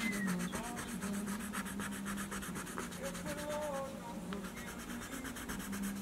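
Coloured pencil scratching over paper coated in metallic silver ink, in quick short back-and-forth strokes, several a second.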